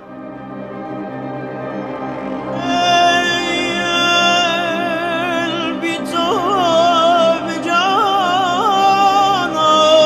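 Soundtrack music: sustained held tones swell in and fill out, and about six seconds in a solo voice begins singing a wavering, ornamented melody over them.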